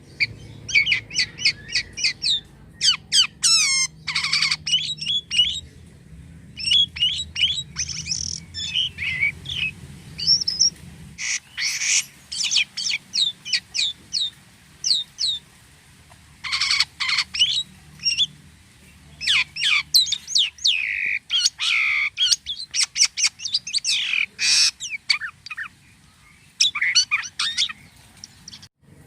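Jalak kapas starling singing vigorously: long runs of rapid chirps, whistles and harsh squawky notes, broken by short pauses, with odd, varied phrases.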